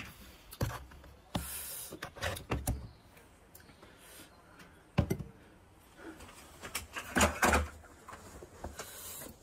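Scattered knocks and clicks of things being handled, with a short hiss of rustling about one and a half seconds in and a cluster of knocks near the end.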